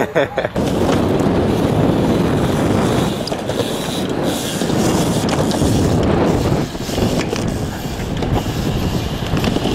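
BMX bike tyres rolling over smooth skatepark concrete: a steady, loud rolling noise that eases off somewhat about two thirds of the way through.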